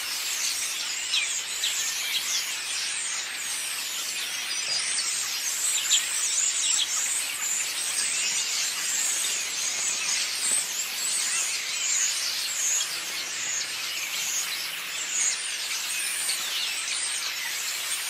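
A flock of many small birds chirping and chattering all at once in a dense hedge, a continuous mass of overlapping high chirps without a pause.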